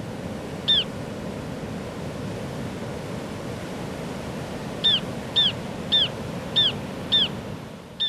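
Sea surf washing steadily against the rocks, with short chirping calls of ruddy turnstones: one a little under a second in, then a run of five about every half second in the last three seconds. The surf fades away near the end.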